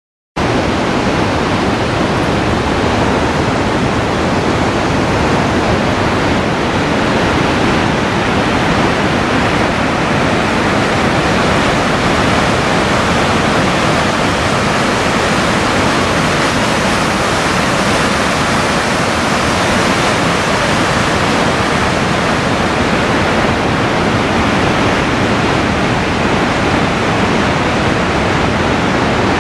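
Water rushing down a canyon creek and waterfall, a loud, steady wash of white-water noise with no breaks.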